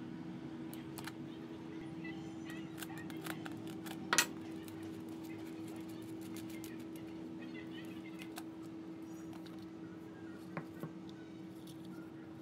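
Small metal-on-metal clicks and taps of an open-end wrench turning the hex nut on a quartz clock movement's shaft, then the plastic movement being handled, with one sharper click about four seconds in. A steady low hum runs underneath.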